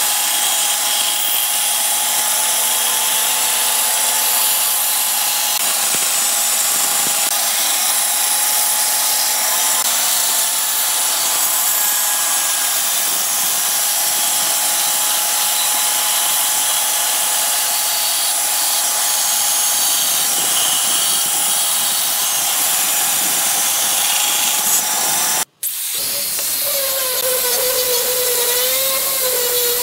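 Band saw running and cutting along a curve through a thick wooden plank, a steady sound. About 25 seconds in it cuts off, and an angle grinder fitted with a sanding disc starts in, sanding the curved wooden edge with a whine that wavers in pitch.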